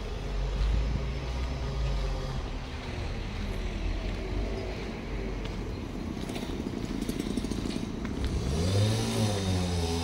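A motor vehicle driving past, with a low rumble throughout and an engine note that rises and then falls near the end.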